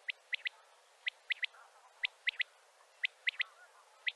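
Male common quail giving its three-note 'wet-my-lips' call, a quick triplet of sharp, high notes repeated about once a second. This is the calling male's advertising call, which draws other quail to him.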